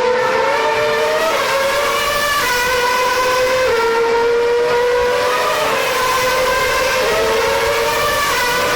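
2013 Formula One car's 2.4-litre V8 engine running at a steady, high pitch for several seconds, with small steps up and down in pitch.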